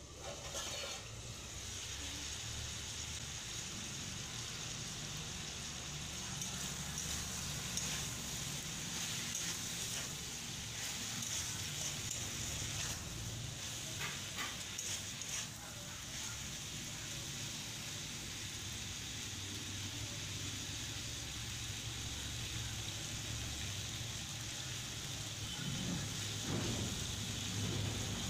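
Pointed gourd and potato pieces sizzling as they fry in a steel kadai, with a steady low rumble underneath. A spatula stirring them scrapes and clicks against the pan a few times around the middle.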